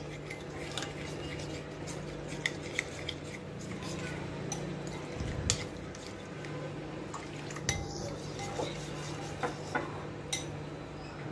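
Steel spoon stirring a thin milk-and-cornflour slurry in a glass bowl, with light, irregular clinks of the spoon against the glass over a steady low hum.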